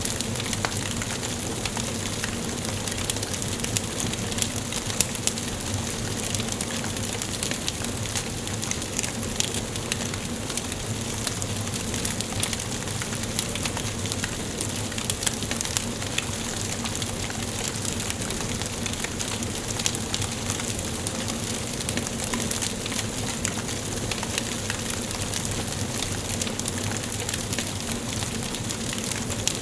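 Wood fire burning in a fireplace: a steady hiss with frequent small crackles and pops.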